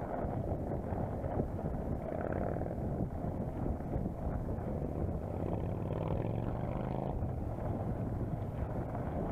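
Wind buffeting a bicycle-mounted camera's microphone, mixed with the rattle of the bike rolling over a rough dirt track. A low steady hum joins about halfway through.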